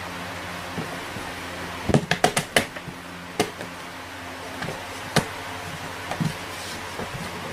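Sharp knocks and taps over a steady low hum: a quick run of five or six about two seconds in, then single ones now and then.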